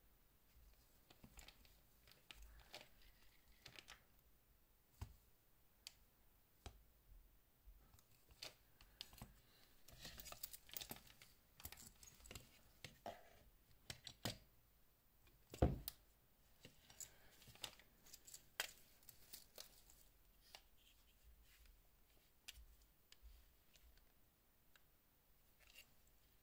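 Faint handling noises: the rustle of cloth gloves and scattered soft clicks and taps as a steel-bracelet watch and a plastic caliper are handled, with one louder knock about 16 seconds in.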